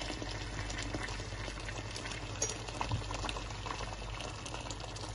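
Lamb curry bubbling and sizzling in a non-stick pan, with many small pops, as the meat cooks down in its spice paste before any water is added.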